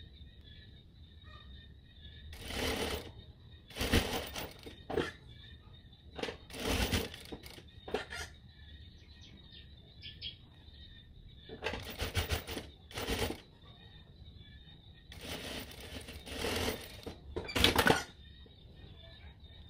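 Fabric being handled and shaken: a series of short rustling, flapping bursts at irregular intervals, over a faint steady high whine.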